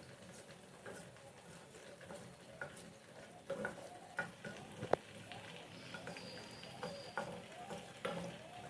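Bay leaves frying in hot oil in a kadai, a faint sizzle, with a spatula stirring and clicking against the pan, the knocks coming more often from about halfway through.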